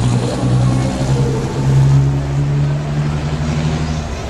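Mercedes-Benz Actros tractor unit's diesel engine running loud as the truck drives off. It is a steady drone that steps up slightly in pitch about one and a half seconds in, then falls away near the end.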